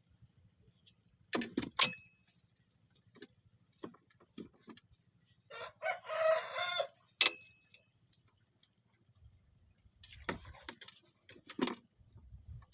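A rooster crows once, about six seconds in, a single call of about a second and a half. Scattered sharp clicks and knocks come before and after it, two of them followed by a brief high ring.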